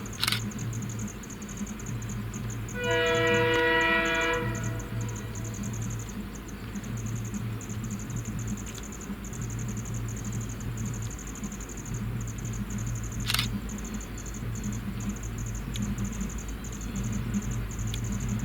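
EMD diesel locomotive's multi-tone horn sounding one blast of about a second and a half, a few seconds in, over a low rumble that swells and fades every couple of seconds. A couple of sharp clicks, one near the start and one about two-thirds through.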